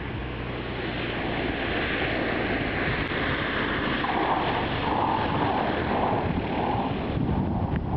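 Single-engine Cessna's piston engine and propeller running as the plane comes in low to land with no nose gear, with wind noise on the microphone.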